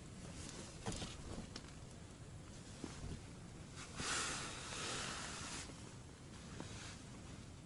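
A small roach hauled up out of an ice-fishing hole on the line: a few light clicks and taps, then about four seconds in a short noisy rush of splashing and rustling, about a second and a half long, as the fish leaves the water.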